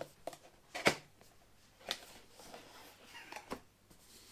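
Cardboard boxes and packaging being handled: a few sharp clicks and taps, the loudest about a second in, with faint rustling between.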